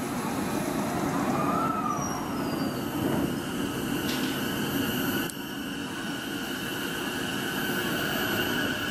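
E233-series electric train standing at the platform with its equipment humming steadily and a sharp click about five seconds in. Near the end a low whine begins to rise as the train starts to pull away.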